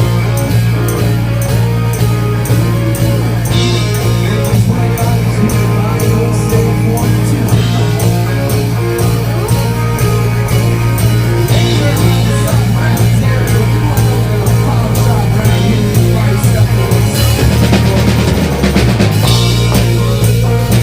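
Rock band playing loud, continuous music on drum kit, electric guitar and bass. The low bass line moves down near the end.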